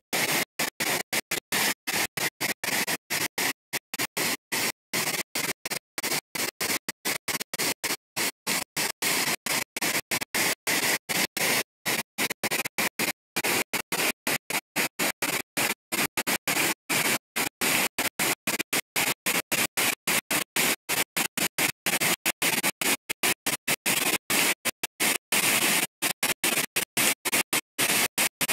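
Steady rushing of a high waterfall, a dense noise with no pitch, broken several times a second by short dropouts where the audio cuts out.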